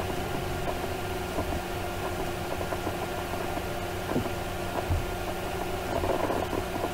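Steady background hiss with a low electrical hum, the room and microphone noise of a recording setup, with a few faint clicks.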